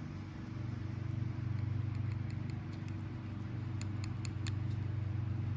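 Faint small ticks and clicks of carburetor parts being handled as the float's hinge pin is lined up, over a steady low hum.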